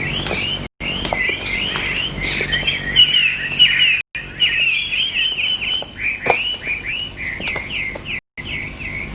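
Small songbird singing, a rapid run of short chirps repeated without pause, broken by three brief cutouts.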